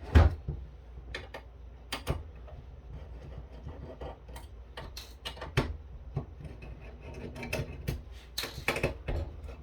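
Irregular clicks and light knocks of hands and tools handling the metal parts of a KVM switch being taken apart. The loudest knock comes just after the start, and there is a quick cluster of clicks near the end.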